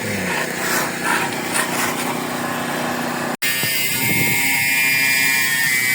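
A power tool cutting tile: a gritty cutting noise, then a brief break about three and a half seconds in, followed by the tool's steady high whine, which rises slightly near the end.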